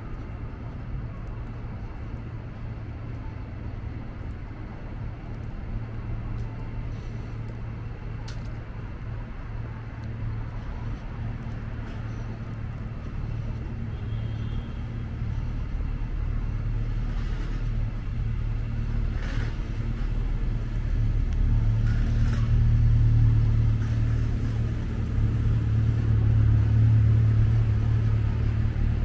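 City street ambience: a steady low rumble of road traffic that grows louder over the second half, with a few faint clicks.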